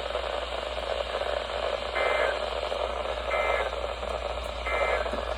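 Emergency Alert System end-of-message data tones: three short warbling digital bursts a little over a second apart, over a steady radio hiss and hum. They are the SAME code bursts that close an alert broadcast.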